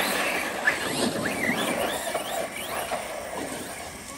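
Electric RC monster truck driving over paving blocks: its motor whines up and down in pitch over the tyre noise as the throttle changes. The sound fades as the truck drives away.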